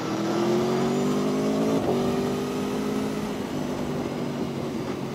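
2021 Aprilia Tuono V4 1100's V4 engine pulling under throttle, its note climbing a little over the first two seconds with a brief break about two seconds in, then holding steady and easing. Wind and road noise lie underneath.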